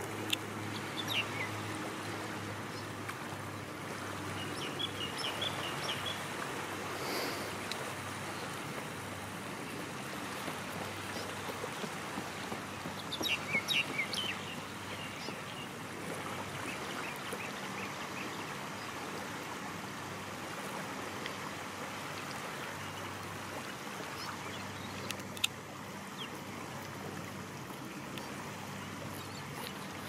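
Shallow seawater lapping and trickling at the shore, with short high bird calls a few times, the loudest a quick run of falling notes about 13 seconds in. A faint low steady hum runs underneath.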